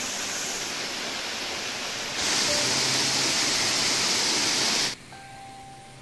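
Rushing water of a waterfall, a steady hiss that grows louder about two seconds in and cuts off suddenly near the five-second mark, leaving a quieter background.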